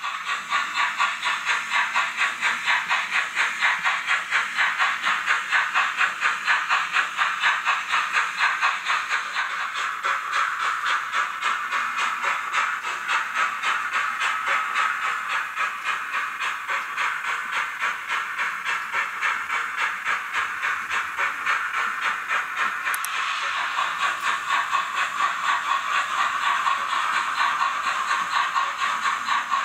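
Zimo digital sound decoder in a Roco HO-scale BR 52 steam locomotive model playing steady, rhythmic steam exhaust chuffs with hiss as the model runs. It comes from the model's small onboard speaker, so it sounds thin, with no bass.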